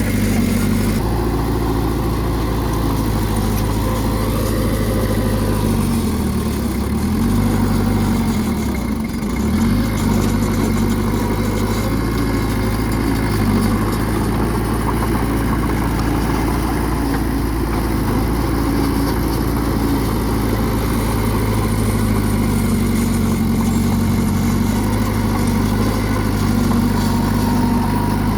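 Bulldozer's heavy diesel engine running steadily, its note dipping and then coming back up about two thirds of the way through the first half.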